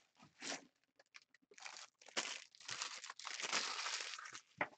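Empty trading-card pack wrappers crinkling and rustling in short, irregular bursts as they are gathered up and crumpled.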